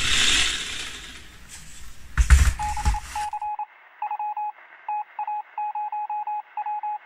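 Handling noise with a couple of knocks, then, about three seconds in, a string of electronic beeps at one steady pitch, short and longer tones in an uneven pattern.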